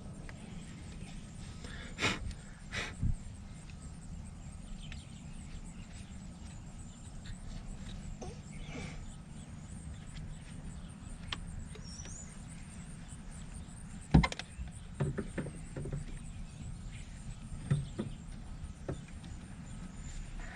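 Scattered knocks and clicks of hand work on the car's interior trim and speaker mount over a steady low hum. The loudest knocks come about two seconds in and again about fourteen seconds in.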